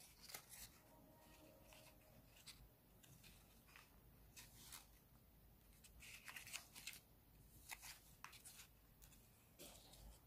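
Near silence, with faint, scattered rustles and light taps of folded paper as hands handle origami dog figures, a little busier after about six seconds.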